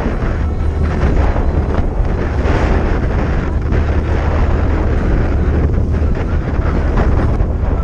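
Steady wind buffeting the microphone: a constant low rumble with a hiss over it, with no breaks.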